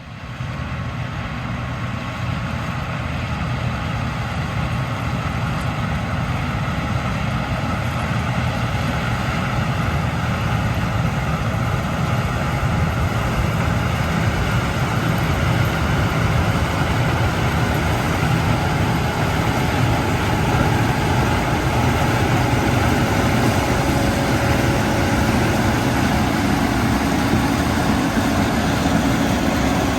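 Case IH 2388 combine running steadily while harvesting corn, engine and threshing machinery heard together; the sound swells over the first few seconds, then holds.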